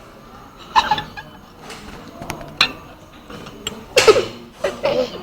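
Short cough-like vocal bursts from a person at the table, about a second in and again near the end, with a few sharp clinks of cutlery on crockery in between.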